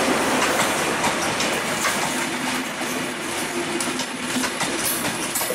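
Bangladesh Railway passenger coaches rolling past close by: a steady rush of wheels on rails with irregular clicking and clattering as the wheels cross the rail joints.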